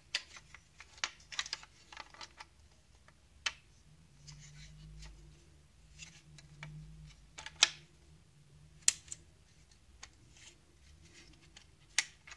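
Plastic housing parts of a Saeco Royal coffee grinder unit being handled and fitted together by hand: irregular sharp plastic clicks and knocks, a few of them louder.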